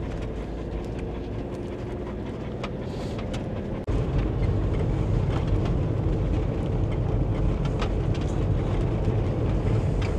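Motorhome engine and road noise while driving, a steady low rumble that turns suddenly louder and deeper about four seconds in.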